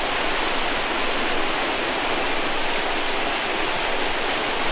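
Steady rush of a large waterfall, close by.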